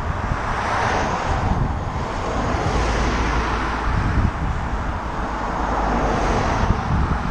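Cars passing a moving bicycle on a country road: tyre and engine noise swells and fades as an oncoming car goes by about a second in and another overtakes from behind, over a steady rumble of wind on the microphone.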